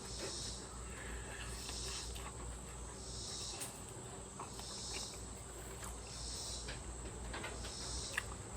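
Insects chirping in short high-pitched pulses about once a second over a steady high trill. A few faint sharp clicks in the second half, from the crispy chicken wing being bitten and chewed.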